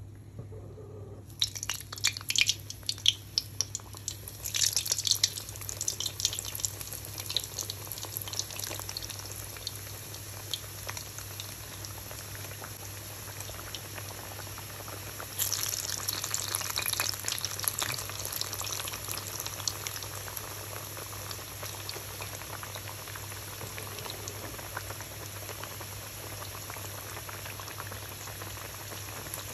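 Gujiyas deep-frying in hot oil. Sizzling and crackling starts about a second in and is busiest for the next few seconds. It swells again about halfway through, then settles into a steadier sizzle.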